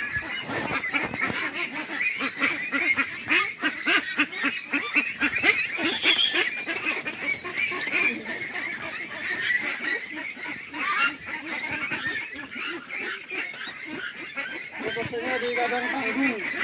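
A large flock of farmed ducks quacking all at once, their calls overlapping without a break.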